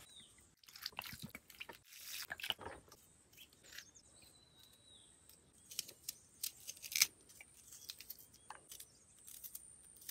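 Knife cutting onions and tomatoes: faint, sparse, irregular crunching cuts, the loudest about seven seconds in. A bird chirps faintly a couple of times.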